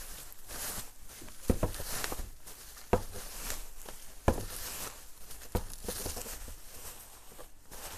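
Bubble-wrap packaging crinkling and rustling as it is unwrapped by hand, with a few sharp clicks now and then.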